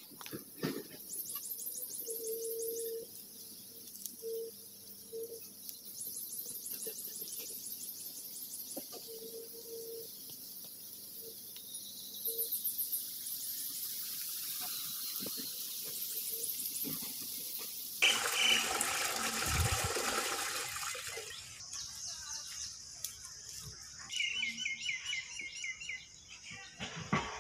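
Outdoor ambience of insects trilling fast and high, with birds calling on and off. About two-thirds of the way through, a few seconds of loud rushing noise cut in, followed by short rapid bird chirps.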